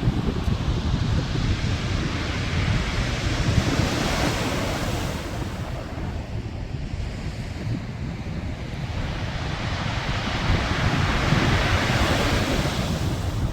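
Sea waves washing, swelling twice and easing between, with wind buffeting the microphone as a steady low rumble.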